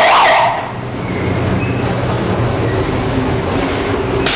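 Haunted-house dark-ride car rumbling steadily along its track, with a low hum underneath. A loud shriek opens it, and a sharp bang sounds near the end.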